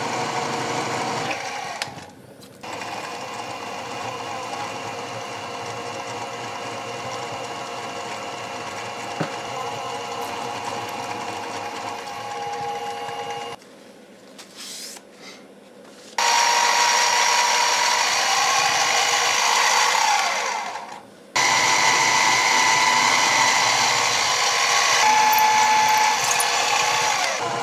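Mini mill spindle running while cutting holes in a metal bar, first with a countersink bit, then a twist drill, with a steady whine. It cuts out for a couple of seconds about halfway, then comes back louder for the drilling, with a short break a few seconds later.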